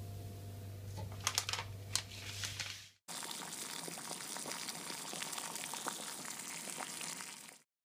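Hand lifting a cut puff pastry round off its sheet, with a few sharp crinkles of the paper beneath over a low steady hum. After an abrupt cut comes a steady crackling hiss lasting about four seconds, then it cuts off.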